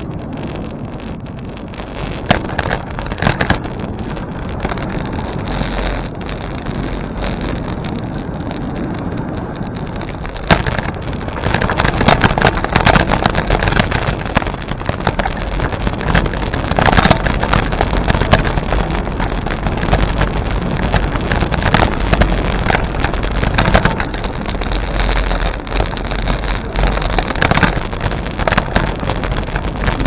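Wind buffeting the microphone of a moving bicycle rider: a steady rushing noise that grows louder and gustier about eleven seconds in, with frequent sharp crackles.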